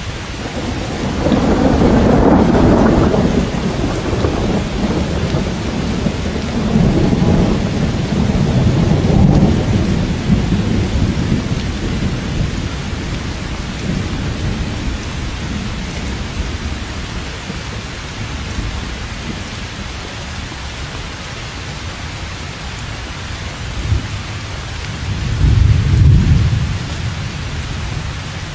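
Steady heavy rain with thunder rolling three times: at the start, again several seconds later, and once more near the end.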